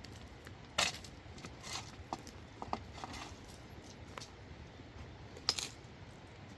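A few scattered light knocks and clinks over a faint steady background, the sharpest about a second in and again near the end.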